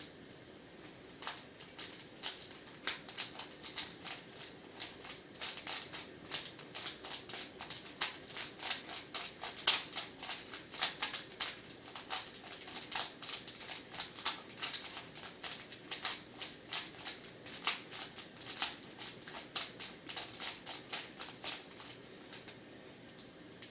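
A plastic 3x3 Rubik's cube being turned by hand: a quick, irregular run of clicks as its layers snap round, several a second, starting about a second in and stopping shortly before the end.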